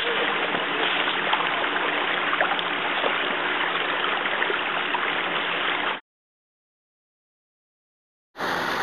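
Stream of water running along the floor of a corrugated-metal culvert, a steady rushing noise that cuts off abruptly about six seconds in. After about two seconds of dead silence, a different steady noise starts just before the end.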